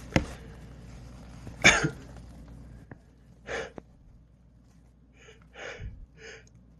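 A man's breathing during a sneezing fit: a sharp, short, explosive burst of breath about a second and a half in, then a few quieter quick sniffs and catching breaths as another sneeze builds. A brief click comes just after the start.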